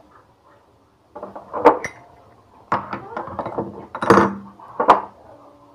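Metal hand tools, an adjustable spanner and a pair of pliers, clinking and clanking as they are handled and set down on a stone slab beside a removed tap. There are several separate knocks over a few seconds, the loudest a little after the middle.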